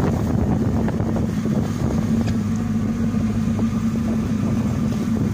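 A boat's engine running steadily, a constant low hum that holds the same speed throughout.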